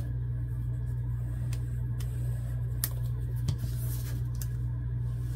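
A steady low hum, with a few faint taps and clicks of paper and a plastic glue bottle being handled as paper flaps are glued and pressed down.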